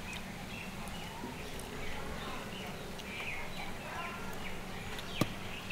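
Small birds chirping again and again over a steady low background, with one sharp click near the end.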